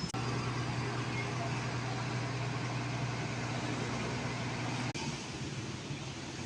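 Dump truck's engine running steadily with a constant low hum, briefly breaking off just under five seconds in.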